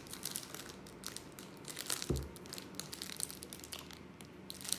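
Plastic wrapper of an Uncrustables sandwich crinkling in the hands as a bite is taken and chewed, with scattered small crackles and a dull thump about two seconds in.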